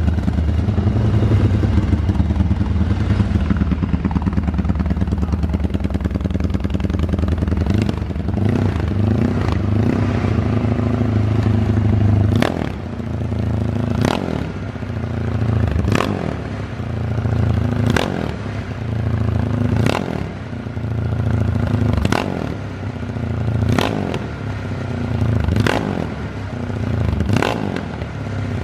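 Honda CG motorcycle's single-cylinder four-stroke engine idling as it warms up on its first start of the day. About twelve seconds in, the idle begins to rise and fall every two seconds or so, with a sharp click at each swell.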